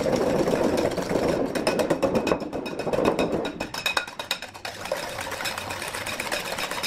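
Hand wire whisk beating egg yolks and sugar in a bowl: a fast, steady clatter of the tines against the bowl, somewhat quieter after about three and a half seconds.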